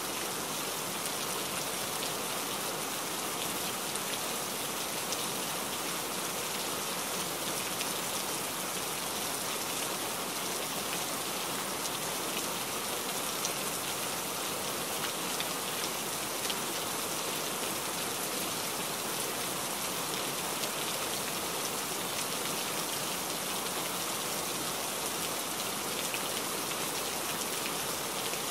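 Steady rain pattering on a truck cab's windshield, heard from inside the moving cab as an even hiss with fine drop speckle.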